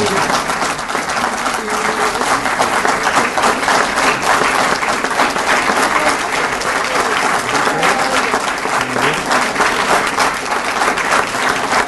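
A roomful of people applauding steadily in a long ovation, with a few voices faintly mixed in.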